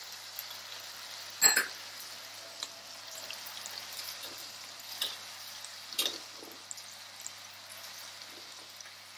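Potatoes, peas and masala sizzling steadily in a kadhai as shredded cabbage is tipped in, with a few sharp clicks from the pan, the loudest about one and a half seconds in.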